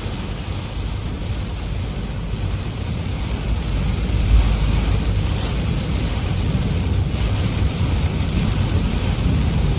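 A car driving through heavy rain: a steady rush of rain and wet tyres on the road over a low rumble, growing a little louder about four seconds in.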